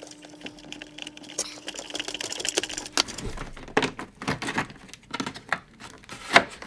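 Hands handling a black plastic mains panel-mount socket with a hinged cover and pushing it into its cutout in a wooden enclosure panel: a run of sharp plastic clicks and knocks in the second half. Before it come light ticks and rustle from handling wiring, over a faint steady hum that stops about three seconds in.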